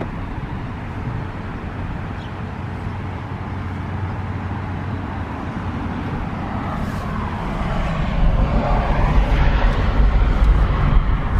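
Vehicle driving, a steady low rumble of engine and road noise that grows louder and rougher about eight seconds in.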